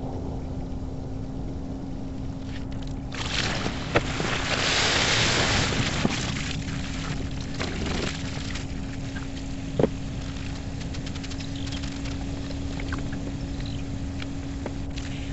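Garden hose spraying water to rinse out an RV's underside waste-valve bay, with water splashing onto the ground for about five seconds starting about three seconds in. After that, water drips from the bay edge, with a couple of sharp knocks, over a steady low hum and rumble.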